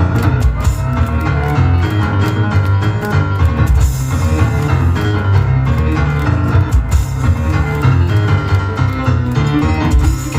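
Live instrumental music from piano, cajón and tambourine, played fast with many sharp percussion strikes over sustained piano notes.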